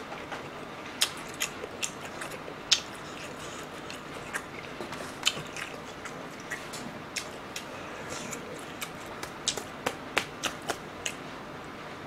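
A person chewing a mouthful of shrimp sushi close to the microphone: scattered wet mouth clicks and smacks, irregular and sharp, over a low steady hiss.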